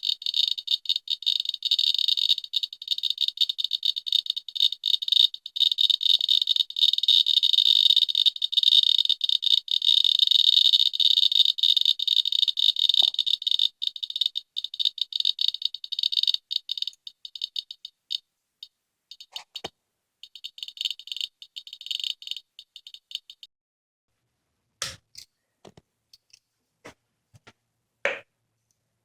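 Geiger counter clicking very rapidly with thin, high-pitched clicks, the count rate falling after about 14 seconds until the clicking stops a little past 20 seconds. A few separate, sharper clicks follow near the end.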